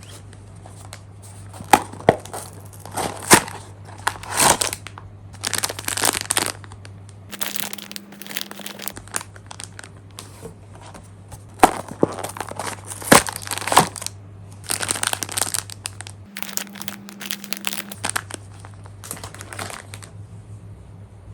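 Plastic packaging crinkling and being torn open by hand, in irregular bursts with a few sharp snaps.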